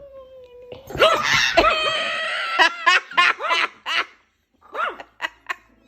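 A person shrieking, then laughing hard in quick bursts, about three a second, which thin out near the end.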